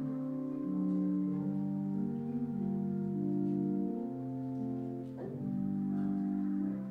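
Slow instrumental offertory music on a keyboard: held chords that change about every second, with a fresh attack a little past five seconds in.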